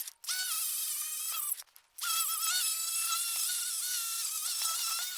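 Angle grinder with a wire wheel whining at high speed as it strips hardened grease off a steel truck frame, its pitch dipping and rising slightly as it bears on the metal. The whine drops out twice, briefly just after the start and again for about half a second a little before the two-second mark.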